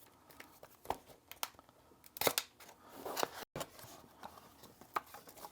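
Cardboard product box being opened and its packaging handled: a scatter of short rustles, scrapes and clicks, loudest around two to three seconds in.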